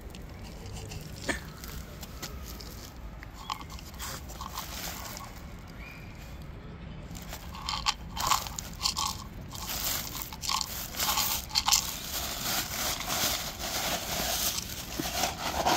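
A cat chewing dry kibble: irregular crunching, faint at first and much louder and more frequent from about eight seconds in.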